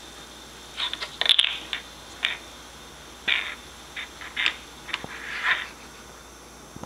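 A bottle cap being tossed and batted about, landing and skittering in a string of short clicks and rattles. The loudest clatter comes about a second in.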